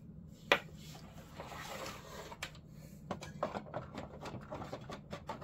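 Hard plastic toy pieces being handled and set into a pink plastic playset wardrobe. One sharp click about half a second in, another a couple of seconds later, then a run of small taps and clicks.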